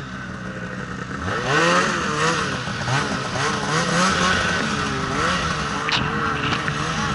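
Polaris 850 RMK Khaos two-stroke snowmobile engine revving up about a second in, then running hard with its pitch rising and falling as the throttle is worked through deep powder, over a hiss of wind and snow.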